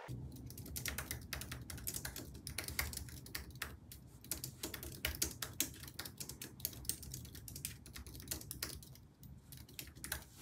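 Typing on an Apple Magic Keyboard: quick runs of light key clicks, with a brief pause near the end. A steady low hum sits underneath.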